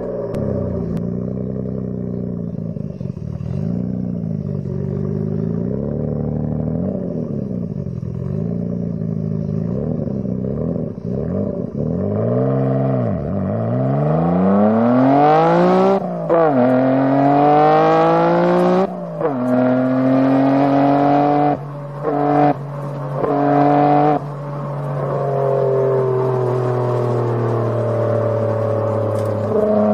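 Nissan Skyline GT-R R33's twin-turbo straight-six running through an HKS Hi-Power exhaust. It cruises at low revs with small rises and falls, then accelerates hard from about halfway through two upshifts, the pitch climbing and dropping sharply at each shift. It then settles into a steady cruise with its note slowly falling.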